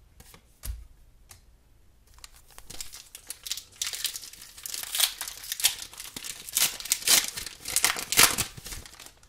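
Foil wrapper of a Pokémon card booster pack crinkling and tearing as it is opened by hand. The crackling starts about two and a half seconds in and grows louder and busier toward the end, after a soft knock about a second in.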